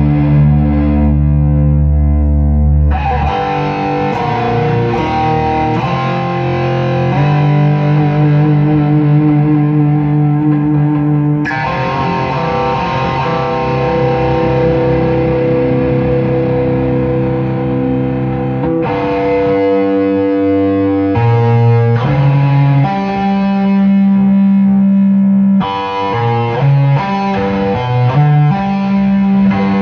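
Electric guitar jamming: long ringing chords and held notes, each struck anew every few seconds, with quicker note changes near the end.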